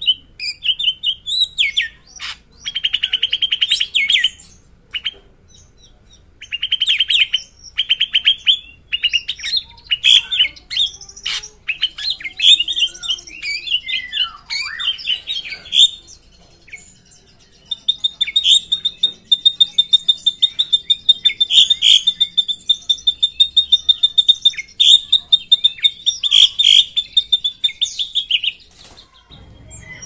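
Drongo song: a varied run of whistles, chips and short fast trills, then from about two-thirds of the way in a long, very fast trilling roll held near one high pitch, broken only briefly.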